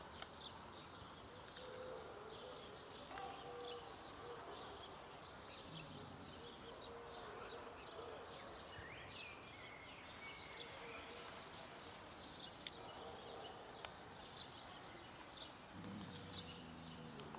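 Faint outdoor background noise with scattered short, high chirps and ticks, and a brief low sound about sixteen seconds in.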